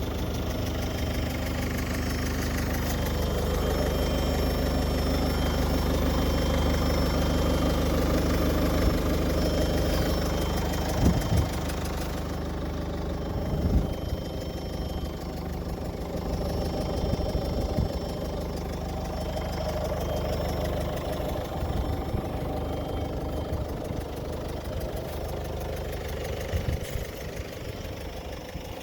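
An engine idling steadily, with a few short clunks about eleven and fourteen seconds in.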